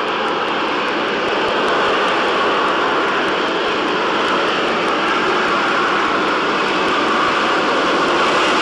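Harrier GR7's Rolls-Royce Pegasus vectored-thrust turbofan running at high power: loud, steady jet noise that grows slightly louder about a second and a half in.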